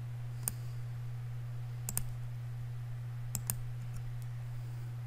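Computer mouse clicking: a single click about half a second in, then two quick pairs of clicks near two seconds and three and a half seconds, with a couple of fainter ticks after. A steady low electrical hum runs underneath.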